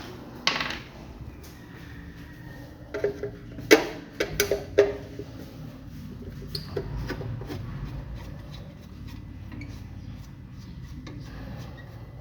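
Hard objects being handled: a knock about half a second in, then a quick run of clinks and knocks, some with a short metallic ring, followed by lighter scattered ticks.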